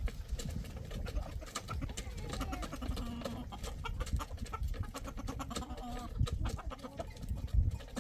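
Chickens clucking in short, scattered calls over a low rumble, with many small clicks.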